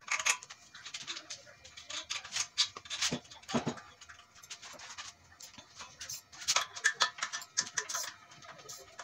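Irregular light metal clicks, knocks and rattles as the steel parts and hanging chain of a home-built band saw mill are handled.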